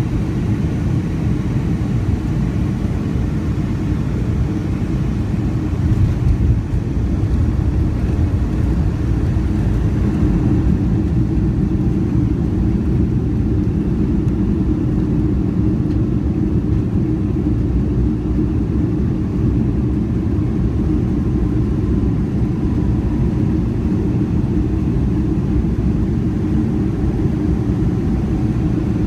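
Cabin noise of a Boeing 757-200 landing, heard from a window seat over the wing: a steady low rumble, with a brief louder bump about six seconds in, then the rumble of the roll down the runway.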